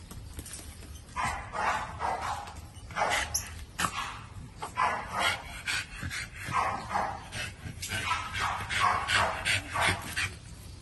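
American Bully dog barking and yipping in short, repeated bursts that start about a second in and come roughly every half second.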